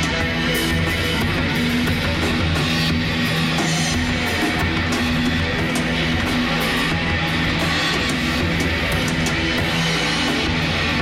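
Rock band playing: electric guitar over a drum kit with cymbals.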